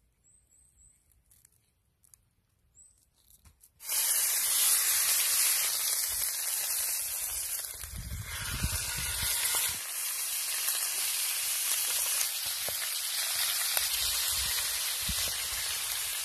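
A beef steak sizzling in a hot cast-iron skillet, a loud steady sizzle that starts suddenly about four seconds in, after a faint start. There are a few low knocks around the middle as the steak is lifted and turned in the pan.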